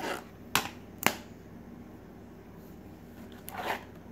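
Plastic DVD case being handled and turned over: a brief scuff, two sharp clicks about half a second apart, then a softer scraping rustle near the end.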